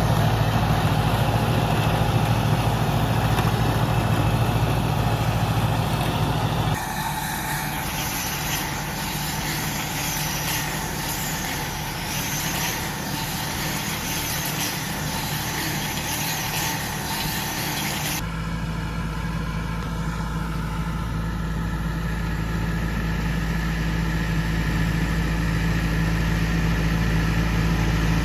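Tractor engine running steadily while driving a KUHN i-BIO+ round baler-wrapper. The sound changes abruptly about a quarter of the way in, to less engine hum and more high hiss, and changes back about two-thirds of the way through.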